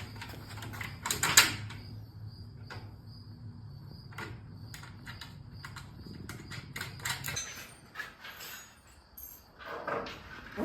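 Irregular clicks and knocks of things being handled, the loudest about a second and a half in, over a steady low hum that stops about seven seconds in.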